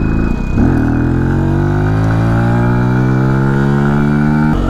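Benelli TNT 125's single-cylinder engine pulling up through a gear, rising steadily in pitch, then dropping at a gear change near the end. Over it runs a thin, steady high whistle that stops at that gear change; the rider has never heard it from a bike before and wonders whether moisture trapped after washing the bike is causing it.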